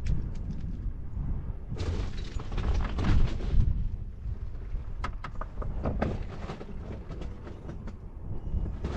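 SUV driving off road over a rough dirt track: a steady low rumble with scattered knocks and rattles.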